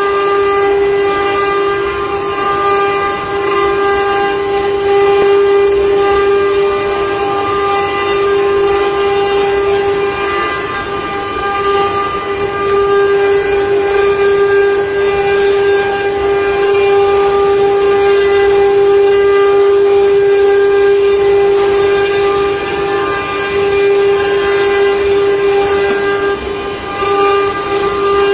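Multi-spindle CNC wood carving router running, its spindle motors giving a steady high-pitched whine while the bits carve wooden relief panels. The pitch holds constant throughout, with the level dipping slightly now and then.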